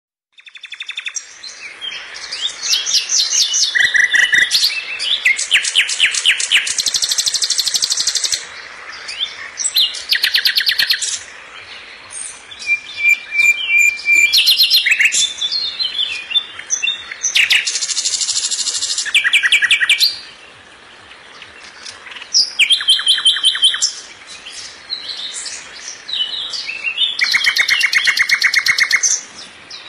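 A songbird singing: fast trills and chirps in phrases of one to three seconds, separated by short pauses.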